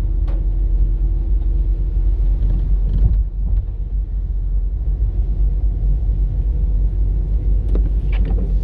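Car cabin noise while driving on wet streets: a steady low rumble of engine and tyres, with a faint steady hum that stops about two and a half seconds in and a couple of light clicks.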